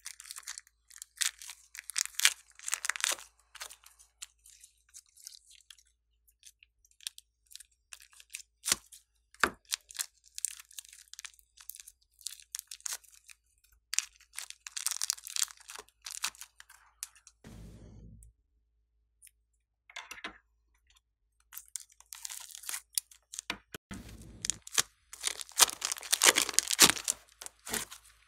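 Glossy slime being stretched, folded and squeezed by hand: bursts of sticky crackling and small pops, with short quiet gaps between handfuls.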